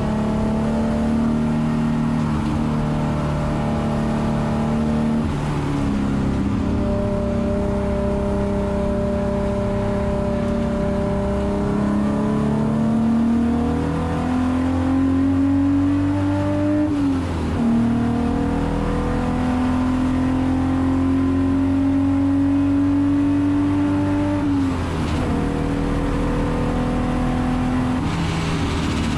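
Alfa Romeo GTV6 race car's Busso V6 engine at racing revs, heard from inside the cabin. The pitch holds or climbs slowly under acceleration and drops sharply a few times.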